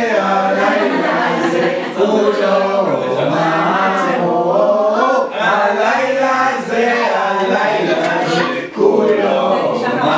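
Several voices at the Seder table singing a Passover song together without accompaniment, in phrases of a few seconds with short breaks between them.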